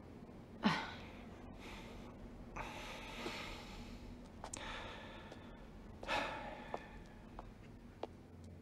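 A person breathing in three long, audible sighing breaths, with a brief vocal sound about a second in and a few faint clicks near the end.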